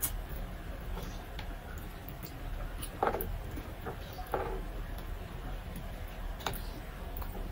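Eating with the hands: faint clicks and mouth sounds of picking apart and chewing fried tilapia, with two louder short crunchy sounds about three and four and a half seconds in, over a steady low hum.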